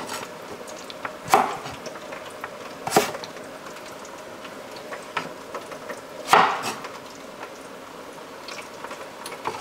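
Knife cutting raw potatoes into steak fries on a cutting board: a few sharp chops at uneven intervals, over the steady bubbling of a batch of fries in a deep fryer.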